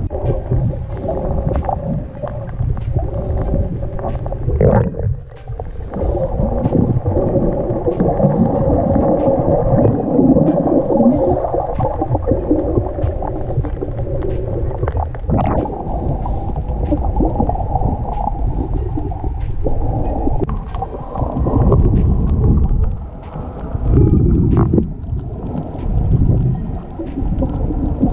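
Underwater sound picked up by a submerged camera: a muffled, low rumble and swirl of moving water, with scattered faint clicks.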